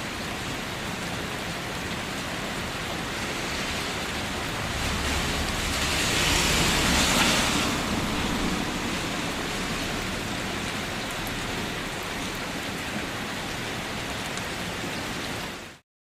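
Steady rain falling, an even hiss that swells louder with a low rumble for a few seconds in the middle, then cuts off suddenly near the end.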